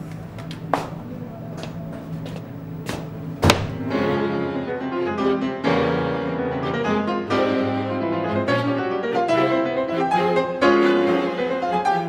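Bar ambience for about the first four seconds: a low steady hum with a few sharp clinks and knocks, like crockery and glasses set down on a counter. Then piano music comes in and carries on to the end.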